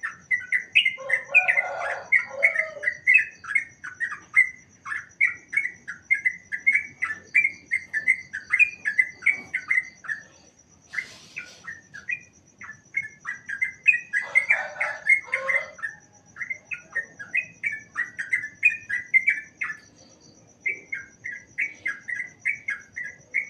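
Yellow-vented bulbuls (trucukan) chirping in quick runs of short bubbly notes, broken by brief pauses, with a couple of lower, harsher calls. A steady, fast high trill runs behind them.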